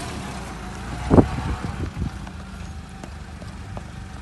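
Jeep Wrangler engine running low and steady as the Jeep crawls over rock, with one sharp knock about a second in.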